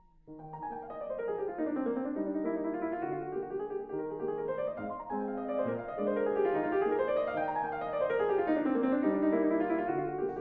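Background piano music fading in about half a second in, playing flowing runs of notes that sweep down and back up over lower held notes, about every three and a half seconds.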